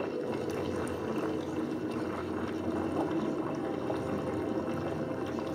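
Mr Fog Switch disposable vape drawn on in a long pull, its coil crackling and bubbling steadily as the e-liquid vaporizes, followed by the vapor being breathed out.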